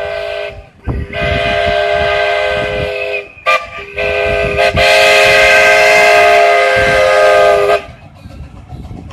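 Steam locomotive No. 1919's chime whistle blowing several notes together in blasts: the end of one, a long blast, a short one and a final long one, the long-long-short-long signal for a grade crossing. After the last blast only the train's quieter running noise remains.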